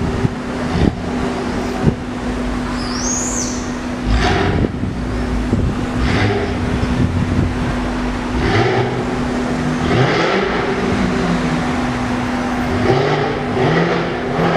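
Jaguar F-Type V8 S supercharged V8 exhaust, with sharp crackles and pops, the clearest about one and two seconds in. The engine rises and falls in pitch as it revs and pulls away in street traffic.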